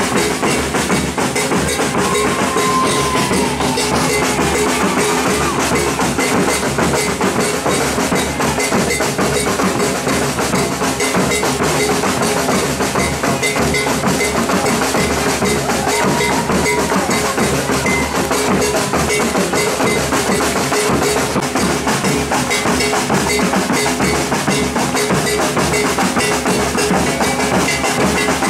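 Brazilian drum band playing a steady, dense beat on its drums.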